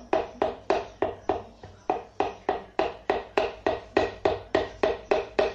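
Rapid light taps, about four to five a second, driving a piston through a piston ring compressor down into the cylinder bore of a Hyundai Atos engine block. Each tap is a short, sharp knock, and they keep going until the rings slip past the compressor into the bore.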